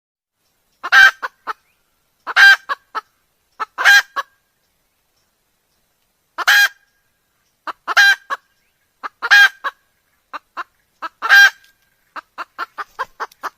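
Red junglefowl calling: seven loud, pitched calls, each flanked by short clucking notes, then a quick run of short clucks near the end.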